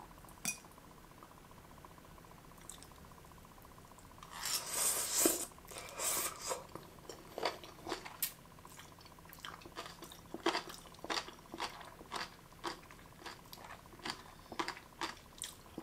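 A mouthful of jellyfish being bitten and chewed, crunchy and gelatinous. A loud crunching bite comes about four seconds in, then a long run of short crisp crunches as it is chewed.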